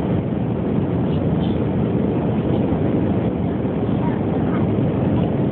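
Steady cabin noise of an Airbus airliner on approach, heard from inside the passenger cabin: jet engine and airflow rush, even in level and strongest in the low range.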